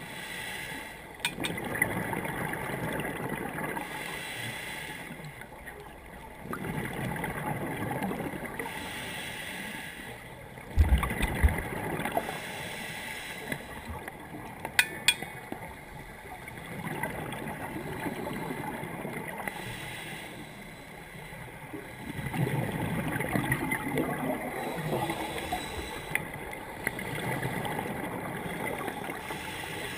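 Underwater sound of a scuba diver's regulator breathing: bubbly, gurgling exhalations in bouts a few seconds long, with quieter inhalations between. A few sharp knocks come near the middle.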